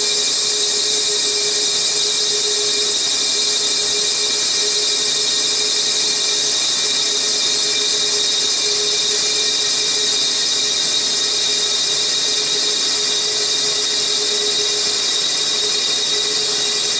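CNC mill spindle running steadily while a boring tool takes a long cut down a sleeved motorcycle cylinder bore: a steady whine of several fixed pitches over a high hiss.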